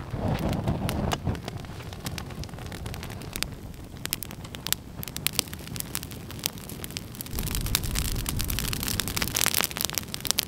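Wood and brush fire burning, crackling and popping throughout over a low rumble, the crackles coming thicker near the end.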